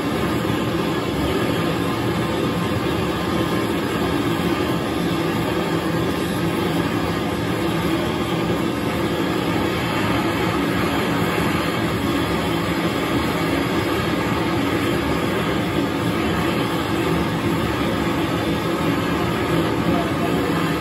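A 1¼-inch LPG flamethrower torch and an oxy-LPG heating torch burning together with a steady, loud rushing noise as they preheat a boiler for silver soldering.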